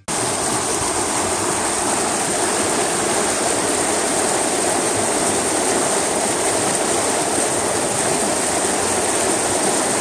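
Water rushing and splashing down a concrete farm irrigation channel, a steady, waterfall-like sound that cuts in suddenly at the start.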